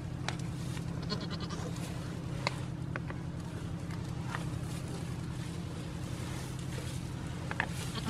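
Goats nibbling and licking at another goat's horns: scattered small clicks and scrapes of teeth on horn, over a steady low hum.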